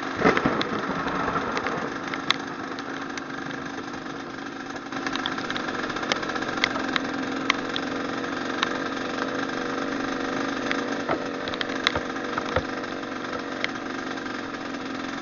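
Trail motorcycle engine running steadily at low revs, with scattered sharp clicks and a brief clatter near the start.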